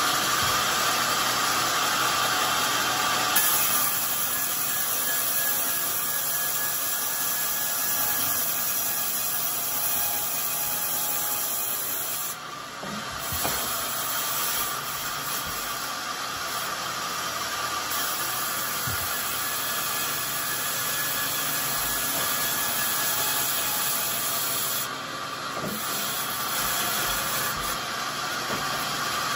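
Large vertical band sawmill running and ripping a coconut-wood slab, a steady whine and rasp of the blade through the wood. The noise drops briefly twice, about midway and near the end, before carrying on.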